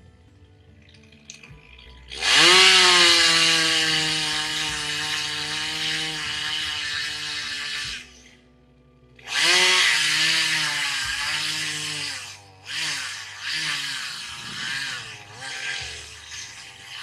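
Two-stroke chainsaw revving up to full speed and held there for several seconds, then dropping off. It revs up again about a second later, followed by several shorter revs whose pitch dips and recovers.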